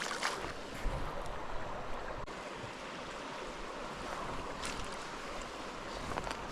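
Steady rush of a small river's water running over rocks, with a few faint clicks.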